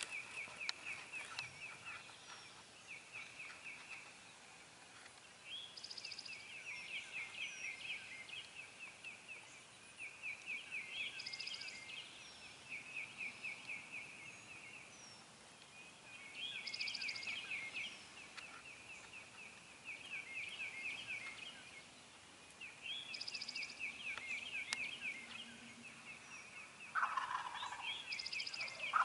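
Wild turkey gobblers gobbling: rapid rattling calls that come again in bouts every few seconds, with a louder, lower gobble near the end.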